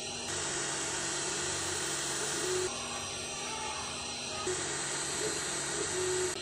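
Creality Ender 3 S1 3D printer running a print: its stepper motors whine at steady pitches that change abruptly every two seconds or so as the moves change, along with a hiss that switches on and off with them.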